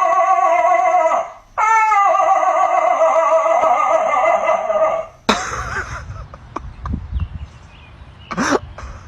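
A dog howling in two long, wavering notes, the second held about three and a half seconds. After a sudden knock, a quieter stretch of small clicks follows, with one short rising yelp near the end.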